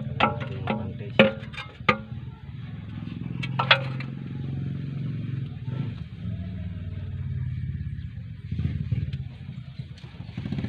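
Sharp metallic clinks and knocks as the steel automatic-transmission oil pan, just removed, is handled against the metal drip pot and underbody: several in the first two seconds, then two more with a short ring about three and a half seconds in. A steady low engine hum runs underneath.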